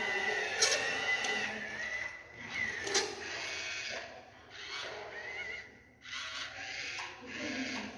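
Small DC gear motors of a metal-kit robot running its plastic gears. A wavering high whine with two sharp clicks fills the first few seconds, then it whirs in short separate bursts.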